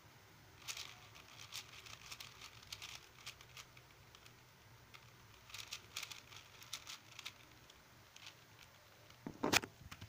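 White stickerless plastic 4x4 speedcube being turned quickly, its layers clicking and clacking in fast irregular flurries with short pauses. A single louder knock comes near the end.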